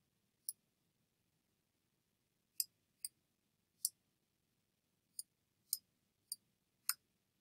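Computer mouse button clicking about eight times at irregular intervals while brush strokes are being drawn, each a short, sharp click over faint hiss.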